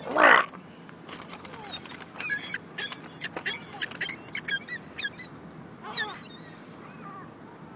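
A flock of birds calling in a quick run of short, high chirps and squeaks as they go after tossed french fries, preceded by one short loud burst right at the start.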